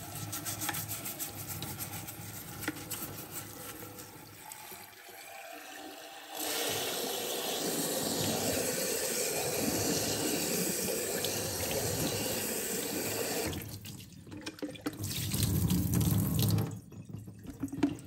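Kitchen tap water running over the plastic cyclone and mesh shroud of a Dyson DC24 dust collector, with a small brush scrubbing the mesh holes early on. About six seconds in the water hitting the part gets much louder and stays steady for about seven seconds, then stops, followed by a few bumps and splashes.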